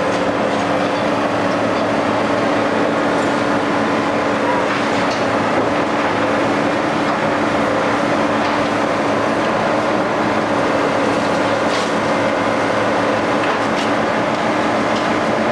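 Scrapyard crane's engine running steadily with a constant hum, a few faint clanks over it.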